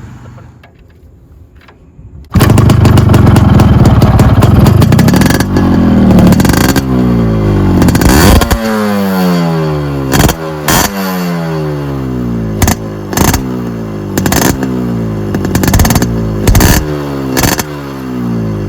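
Yamaha RX100's two-stroke single-cylinder engine revving. It comes in loud and suddenly about two seconds in, after a quiet start, and the revs climb. From midway on it runs as a series of quick throttle blips, each rev falling away, with sharp cracks among them.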